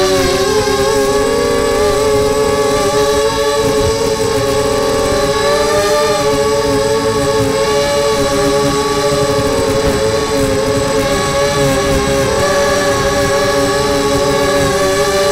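Brushless motors and 5x3 props of a 250-size FPV quadcopter (SunnySky 2204/2300KV motors), heard from the onboard camera: a loud, steady whine of several close tones that wavers up and down with throttle, over rough wind buffeting on the microphone.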